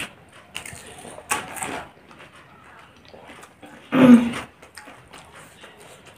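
People chewing pani puri, with short crunching and mouth noises as the crisp shells break. A short vocal noise about four seconds in is the loudest sound.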